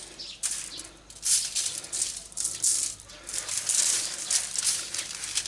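Granular dry spice rub of salt, paprika and brown sugar being shaken out of a container onto raw pork ribs: a run of repeated rattling, hissy shakes.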